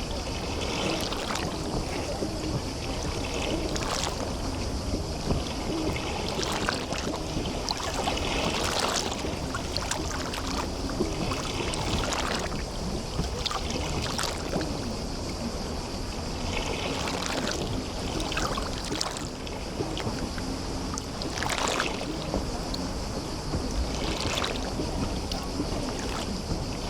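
Small sea waves lapping and sloshing along the shore of a bay, in irregular splashes every second or two over a steady low rumble of water and wind.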